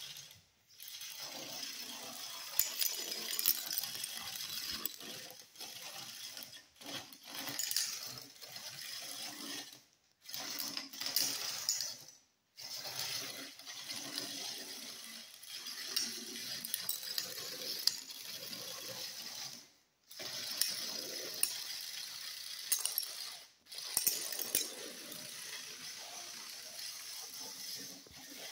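Motorized Lego Technic sweeper running: its small electric motor and plastic gears whir while the spinning sweeper arm clacks loose Lego beams across a hardwood floor, with many sharp plastic clinks. The sound breaks off briefly several times.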